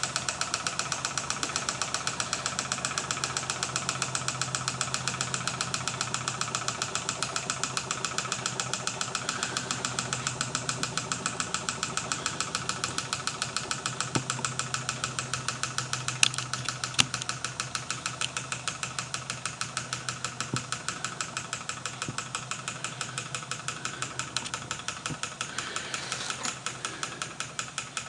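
Gamma-type Stirling engine with a Ross yoke linkage running steadily, giving a rapid, even ticking over a low hum. A few louder clicks stand out about halfway through.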